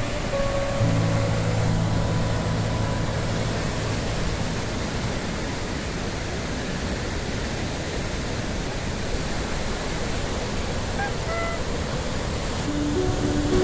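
Sea surf rushing steadily at high tide, an even roar of breaking waves. Background music plays faintly in the first few seconds and comes back near the end.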